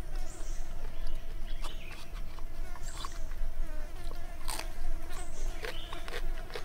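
A person eating roasted pork skin: irregular wet smacks and chewing clicks from the mouth, over a steady low buzzing hum.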